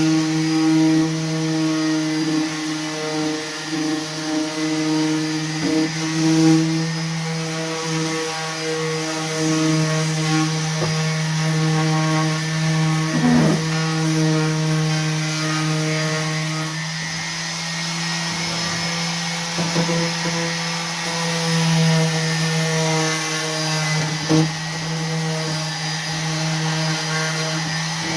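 Electric orbital sander running steadily, with a constant even-pitched hum as it sands wood. There are a couple of light knocks, one about halfway through and one near the end.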